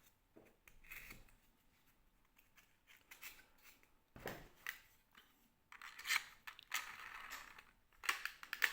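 Faint clicks and scraping of plastic as darts are pushed into a 3D-printed hamstringer, with busier handling about six seconds in and again near the end.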